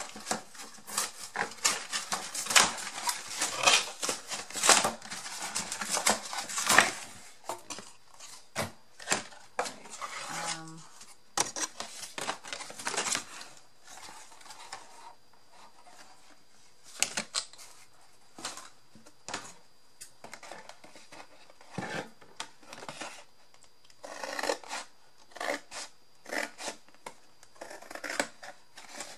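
Scissors cutting and hands handling thin cereal-box cardboard: a busy run of snips and rustles for the first several seconds, then scattered clicks and rustles.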